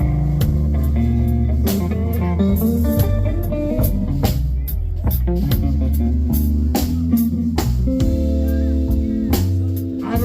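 Live blues band playing: electric guitar lead with bent notes over bass guitar and a drum kit keeping a steady beat.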